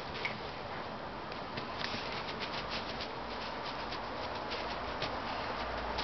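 Dog tugging backward on a stretched bungee cord, with a rapid run of light clicks and scuffing from its paws shuffling on dry grass and dirt, starting about two seconds in.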